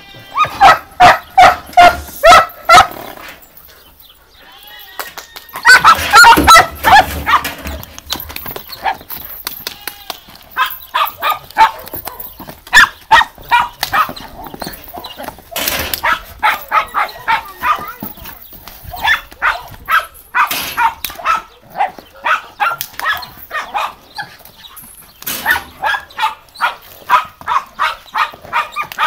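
Dog barking in quick runs of several barks a second, broken by short pauses, with a louder, longer run about six seconds in.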